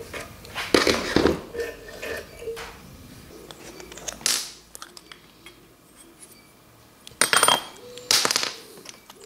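WD-40 aerosol can spraying in several short hissing bursts, with light metallic clinks of tools and engine parts in between.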